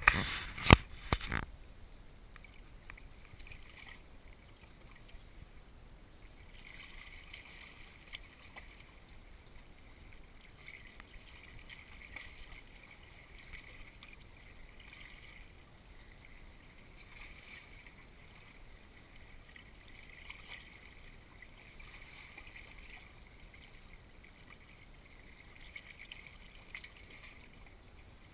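A few sharp knocks close to the microphone in the first second and a half. After that, faint lapping of a calm sea against shore rocks, swelling and easing by turns.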